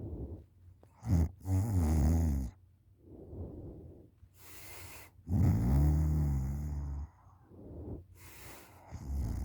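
A sleeping person snoring on her back with her mouth open. Loud, low, buzzing snores come about every four seconds, with quieter airy breaths between them, like a tiny little tractor.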